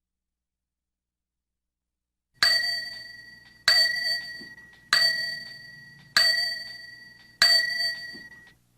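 A small bell struck five times, about one strike every second and a quarter, each a sharp ding with a high ring that fades before the next. The first strike comes about two and a half seconds in, after silence.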